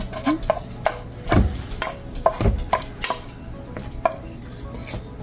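A spoon knocking and scraping against a mixing bowl while a vegetable mixture is spooned out and stirred: irregular clicks, with two heavier thumps about a second and a half and two and a half seconds in.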